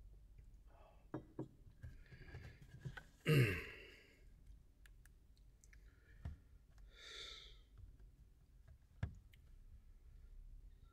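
Soft clicks and knocks of a steel cup and a tablet in its case being handled on a wooden table. The loudest sound is a breathy sigh about three seconds in that falls in pitch, with a softer breath about seven seconds in.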